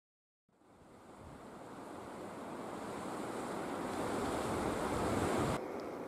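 Wind rushing through forest trees, with no tones or distinct events. It fades in about half a second in, swells steadily louder, then drops suddenly to a quieter steady rush just before the end.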